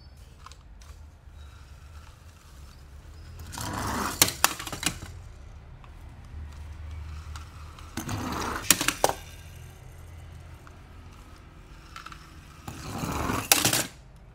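Toy car packaging being handled and opened by hand: three bouts of scraping and rustling, each ending in a few sharp clicks.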